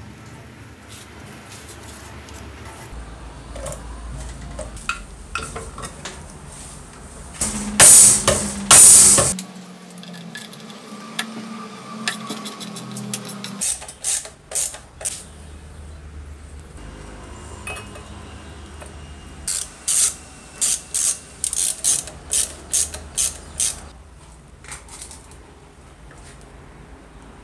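Metal parts of an old electric metal cut-off saw being handled and fitted together on a workbench: clinks and taps of small metal parts. About 8 s in come two loud hissing bursts, and later a run of about ten short sharp sounds, roughly two a second.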